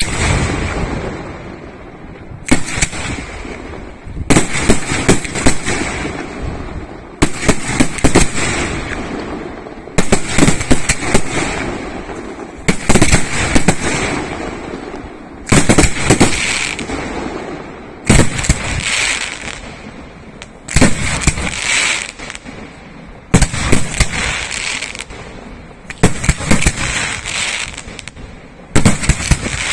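Aerial firework shells bursting in a professional display: a quick run of sharp bangs every two to three seconds, each group fading away before the next.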